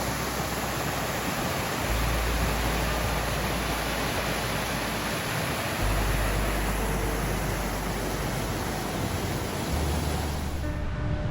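Steady rush of flowing water from the spring-fed creek at Fossil Springs, a loud even roar that cuts off just before the end.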